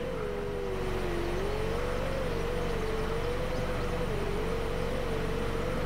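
A 4-inch Newbeedrone Whirligig FPV quadcopter's brushless motors whining in flight, one steady tone whose pitch wavers up and down as the throttle changes.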